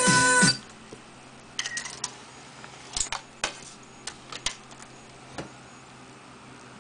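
Music playing through a Pioneer DEH-P6700MP car stereo cuts off suddenly about half a second in, then a scatter of short plastic clicks and knocks as the unit's detachable faceplate is handled and snapped back into place.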